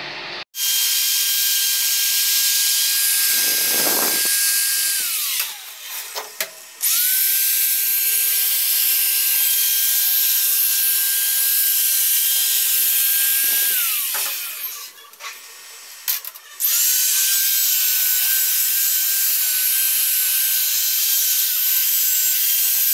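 Straight die grinder with a brush attachment running at a steady high whine, cleaning a Volkswagen 1.9 aluminium cylinder head before welding. It winds down with a falling pitch about 5 seconds in and again about 14 seconds in, each time starting up again shortly after.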